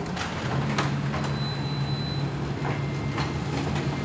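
Canon imageRUNNER 2535 photocopier running a copy job: a steady motor hum sets in about half a second in, with a few sharp clicks and ticks from the paper feed.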